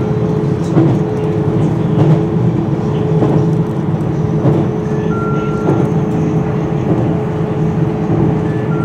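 Electric train running at speed, heard from inside the front cab: a steady rumble of wheels on rail with a constant motor hum and light clicks from the track. A short two-tone beep sounds about five seconds in.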